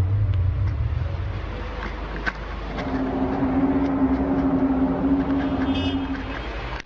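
Amateur recording of one of the so-called 'strange sounds' in the sky: a low drone at first, then a single steady tone held for about three and a half seconds, over outdoor traffic noise. It cuts off abruptly near the end.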